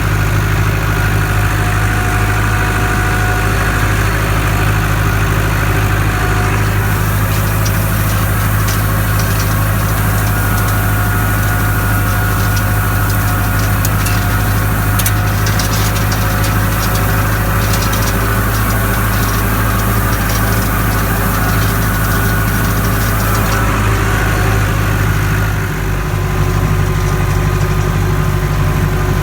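Farm tractor engine running at a steady speed, with a spell of light clicking and rattling from about 7 to 23 seconds in.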